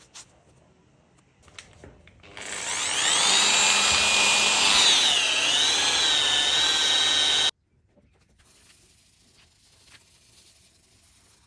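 A power tool runs with a high whine. Its pitch dips and wavers for a moment midway, and it cuts off abruptly.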